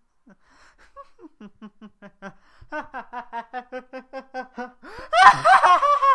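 A voice actor's mocking in-character laugh: quick, evenly spaced chuckles, about five a second, growing louder and higher. About five seconds in it breaks into a loud, shrill cackle.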